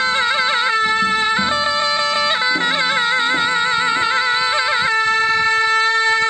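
Zurna playing a folk melody, with quickly wavering ornamented notes alternating with long held notes, the longest near the end.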